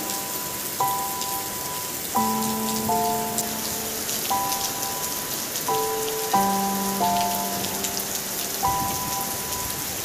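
Steady heavy rain pouring onto paving, soil and leaves, a dense hiss full of small drop splashes. A slow melody of long held notes plays softly over it.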